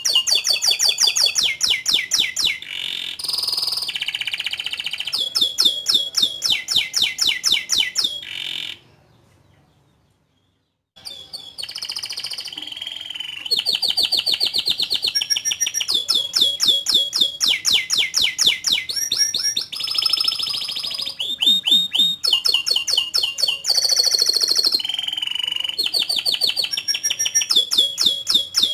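Domestic canary singing a long, loud song of rapid repeated chirps and rolling trills, high-pitched, with a gap of about two seconds of near silence about a third of the way through.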